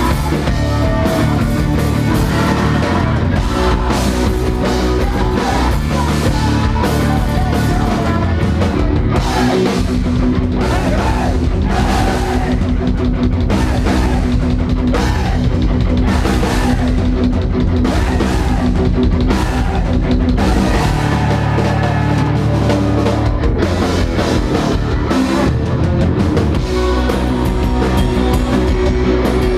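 Rock band playing live: drum kit beating steadily under electric guitars, loud and continuous.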